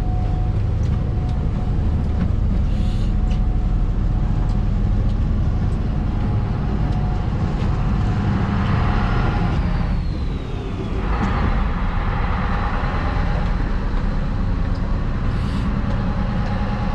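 Tour boat's engines droning steadily with a deep rumble. A rushing noise rises about halfway through.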